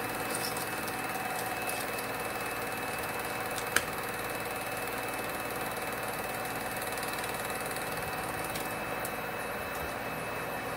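Elmo Sound HiVision SC-18 M Super 8 projector running: a steady motor hum and mechanical whir with a few constant tones, and one sharp click about four seconds in.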